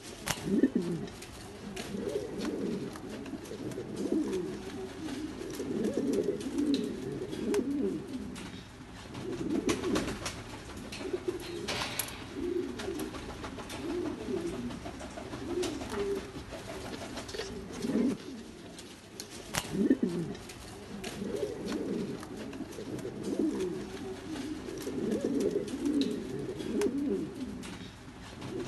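Norwich cropper pigeon, crop puffed up, cooing over and over in low rolling phrases.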